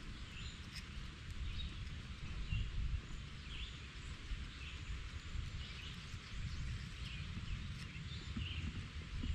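Outdoor ambience: a steady low rumble, likely wind on the microphone, with short high chirps from small animals repeating about once a second.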